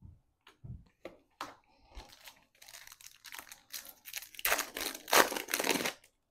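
Panini Absolute football trading cards being handled and pulled from a foil pack wrapper: light clicks and card rustles, growing into denser, louder crinkling over the last two seconds, then stopping.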